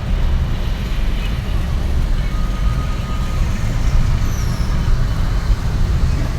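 Steady low rumble of a road vehicle travelling, engine and road noise with no breaks.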